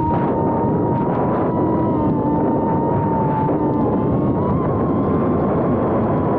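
Small FPV quadcopter's brushless motors and 2.5-inch propellers whining, heard from a camera mounted on the drone, the pitch holding nearly steady and wavering slightly with throttle, over a rushing noise of wind and propwash.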